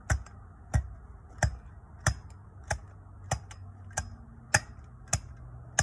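Hand tamper striking down on QPR cold-patch asphalt in a pothole, packing it with a steady rhythm of about ten thuds, roughly one and a half per second.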